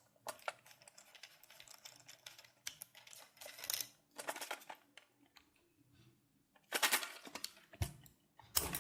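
Clicks and scrapes of a plastic toilet fill valve's fittings as they are handled and the connection end is swapped by hand. The O-rings on the fittings are tight. The loudest rasps come about seven seconds in and again near the end.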